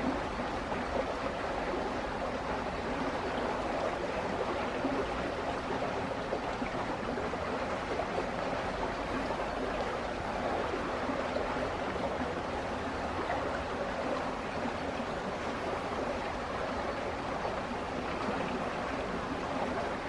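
Steady rushing of flowing stream water, an even noise without breaks.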